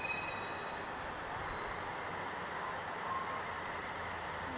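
Steady rumble and hiss of slow traffic in a road tunnel, with faint, thin high squeals at several pitches coming and going over it.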